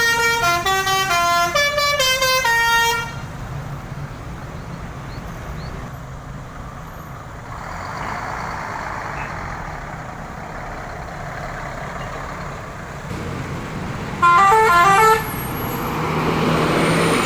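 Bus 'telolet' Basuri multi-trumpet musical horn playing a quick tune of stepping notes for about three seconds, then traffic and engine noise. About fourteen seconds in the horn plays a second, shorter and louder tune, and a vehicle passes close near the end.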